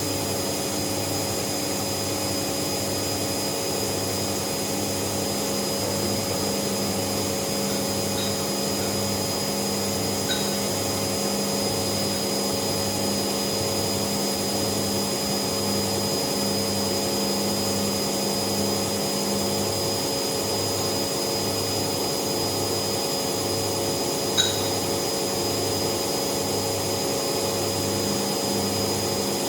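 Bauknecht WAS 1400 washing machine running: a steady motor hum with a low pulse repeating about once a second. There are a few faint clicks, the sharpest about 24 seconds in.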